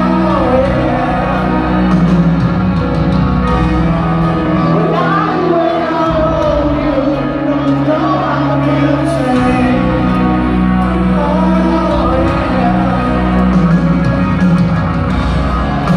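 Live rock ballad played in a stadium: a male lead vocal over piano and band, with shouts and cheers from the crowd, heard from the stands with the room's reverberation.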